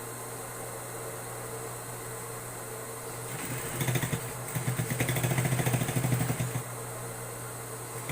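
Electric sewing machine: a steady low hum, then a run of fast needle stitching from about three seconds in to about six and a half seconds.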